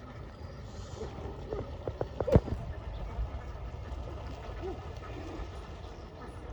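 Ducks giving a few short quacks over a steady low rumble, with a quick run of clicks and knocks about two seconds in, ending in one sharp knock.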